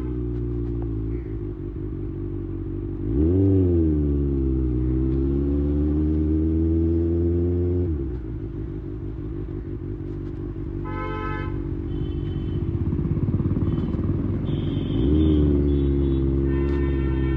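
Kawasaki Ninja ZX-6R inline-four engine through an IXIL slip-on exhaust. About three seconds in the throttle opens sharply and the revs dip briefly, then climb steadily for several seconds. The throttle closes and the engine drops back to a lower note, then opens again near the end.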